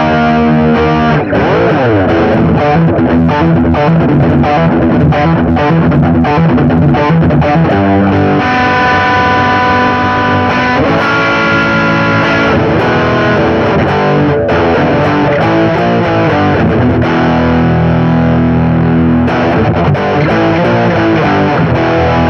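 Electric guitar played through a Marshall GV-2 Guvnor Plus overdrive/distortion pedal: choppy, distorted strummed riffs, a stretch of ringing held chords in the middle, then more riffing.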